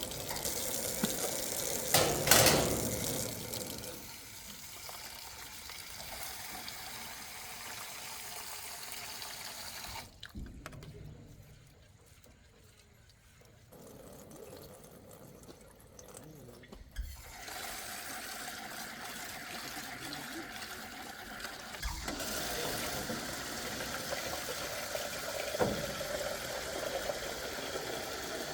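Rushing stream water, a steady noise that falls much quieter for several seconds in the middle before returning. A short louder noise comes about two seconds in.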